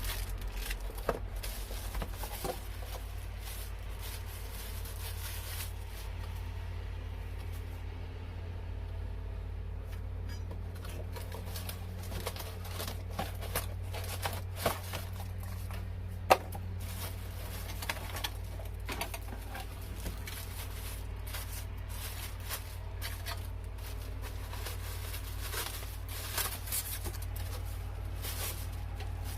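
Scattered light clicks and taps, a few sharper ones now and then, over a steady low hum.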